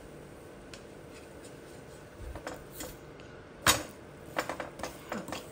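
Wooden spatula knocking and scraping against a nonstick frying pan while a ragi adai is moved and turned. A few light taps, one sharp clack about two-thirds of the way through, then a quick run of knocks near the end.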